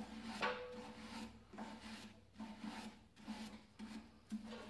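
Hand wire brush scrubbing the steel belt sheave and bushing on a fan shaft, in quick repeated strokes, a little under two a second, cleaning off caked belt dust.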